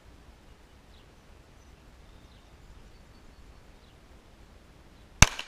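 A single 9mm pistol shot from a Glock 27 fitted with a Lone Wolf 9mm conversion barrel, sharp and loud, near the end, with a brief echo trailing off. Before it, quiet open-air ambience with a few faint bird chirps.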